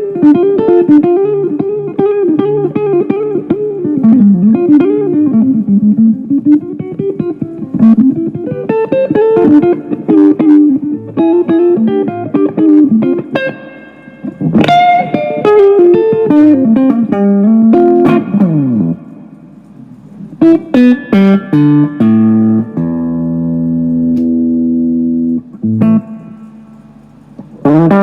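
Electric guitar played solo as a demonstration of its freshly adjusted setup: a lead line full of string bends, a long downward pitch dive about two-thirds through, then short choppy chords and one chord left ringing for about three seconds, with a new chord struck at the very end.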